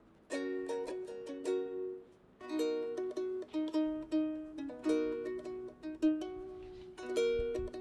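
Background music: a melody of plucked-string notes, with a short pause about two seconds in.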